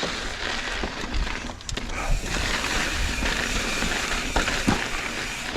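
Mountain bike riding over a rocky trail: steady wind rumble on the microphone with tyre and frame rattle and a few light knocks.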